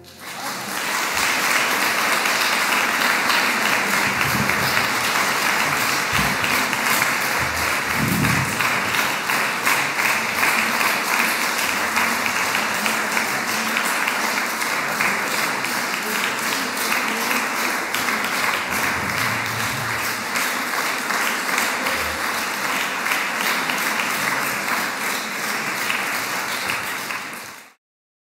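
Audience applauding steadily after a chamber music performance, cutting off abruptly near the end.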